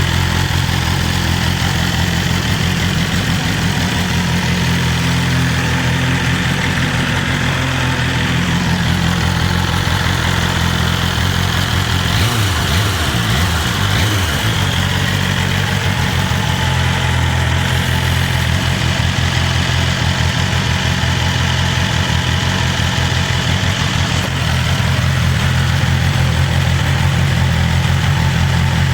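BMW S1000RR's inline-four engine with its stock exhaust, idling steadily; the idle wavers briefly about twelve seconds in, then settles again.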